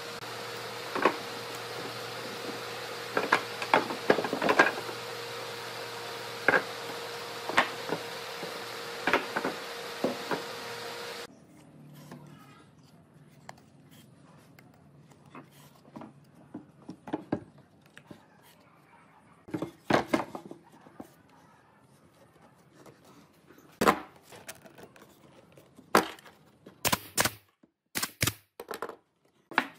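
Sharp wooden knocks and taps from pieces of pallet wood being handled and fitted, scattered irregularly. A steady hum with a constant tone sits under the first part and cuts off abruptly about eleven seconds in; after that the knocks come against a quiet background, several in quick succession near the end.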